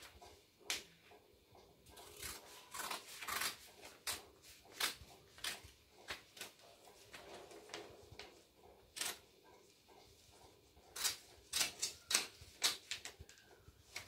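Small children's scissors snipping through a sheet of paper: irregular crisp snips with paper rustling between them, a quicker run of snips near the end.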